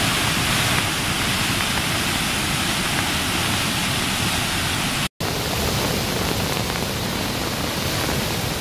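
Rain-swollen, muddy stream rushing down a rocky channel: a steady, loud rush of water, broken by a split-second dropout about five seconds in.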